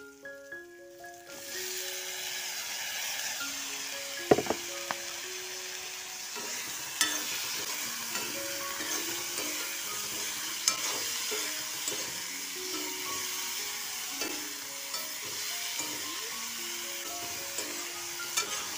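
Dried shrimp frying with onion and green chillies in hot oil in a metal wok: a loud steady sizzle starts about a second in, when the shrimp go into the pan. A metal spatula stirs through it, with sharp clinks against the wok now and then.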